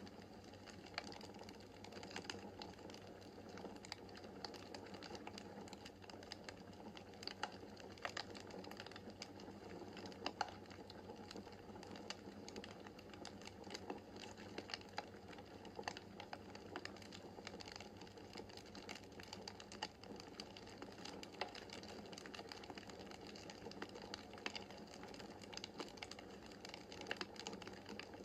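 Wood fire crackling in a fireplace: a steady soft flame hiss with many small irregular pops and snaps, a few sharper ones standing out.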